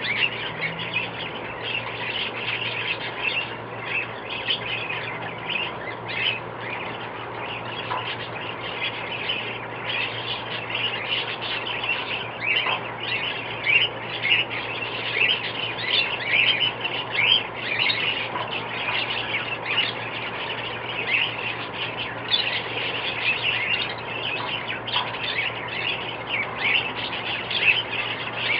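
A flock of small birds chirping and calling together in a dense, unbroken chorus of short, high, overlapping calls. A steady low hum runs underneath.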